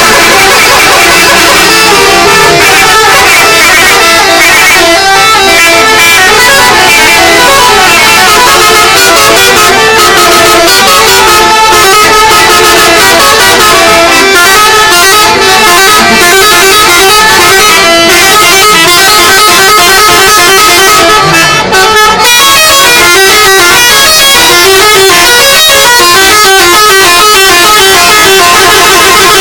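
Telolet horns on several buses, multi-tone musical air horns, sounding over one another and playing quick, repeating multi-note tunes. Very loud and continuous.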